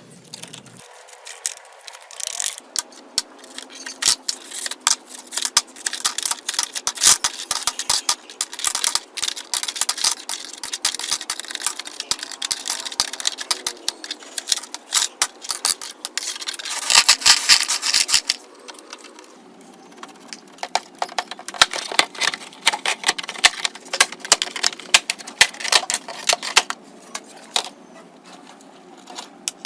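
Rapid, irregular clicks, taps and scrapes of small hand tools and parts being handled during a Samsung rebuild, with a louder stretch of scraping about two-thirds of the way through.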